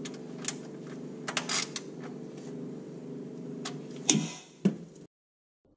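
Handling noises as the camera is set down and tools are arranged: scattered clicks and knocks, the loudest about four seconds in, over a steady low hum. The sound cuts to silence about five seconds in.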